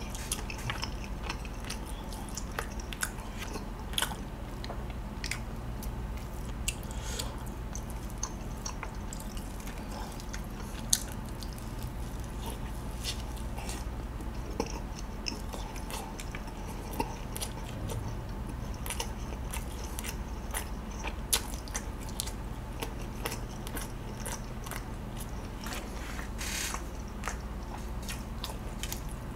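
Close-miked chewing of a chargrilled chicken skewer, with many small wet mouth clicks and smacks and a few louder ones scattered through.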